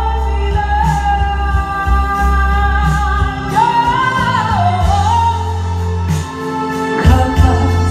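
A woman singing a Spanish-language song into a handheld microphone through a PA, over a backing track with bass and a steady beat. She holds long notes and climbs higher a little past the middle.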